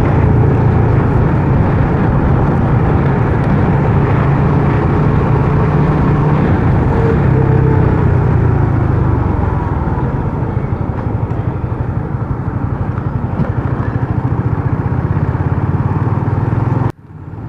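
Honda RS150R's single-cylinder four-stroke engine running while riding, its note falling about halfway through as the bike slows. The sound cuts out abruptly for a moment near the end.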